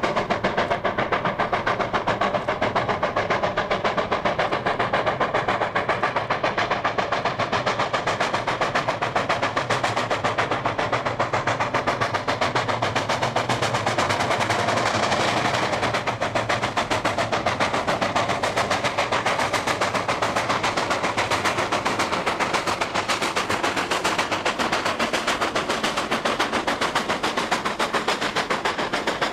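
Steam locomotive working hard, its exhaust beating in rapid, even chuffs, with fire and sparks thrown from the chimney under heavy load.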